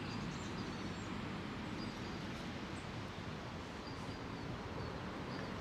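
Outdoor ambience: a steady, even rushing noise with a few faint, short, high bird chirps scattered through it.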